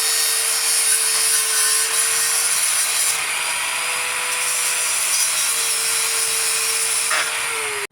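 Grinder with a cutoff wheel cutting through a steel frame rail: a steady high motor whine over a loud hiss of grinding, dropping in pitch and cutting off right at the end.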